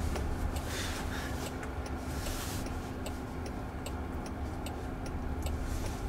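Turn-signal indicator ticking in the cabin of a Waymo Jaguar I-Pace, a regular run of sharp clicks a few a second as the car waits to turn left, over a low steady cabin hum.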